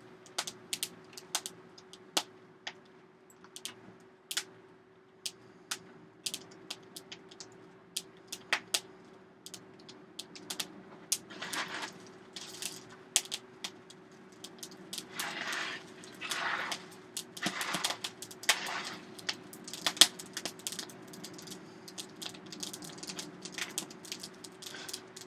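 Wood and coal burning in a blacksmith's coal forge, crackling and popping with irregular sharp snaps, over a steady low hum. A few rushing surges come in past the middle.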